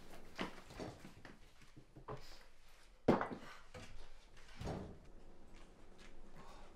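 A few scattered light knocks and clicks of things being handled in a kitchen. The loudest knock comes about three seconds in, and a duller thud follows just before five seconds.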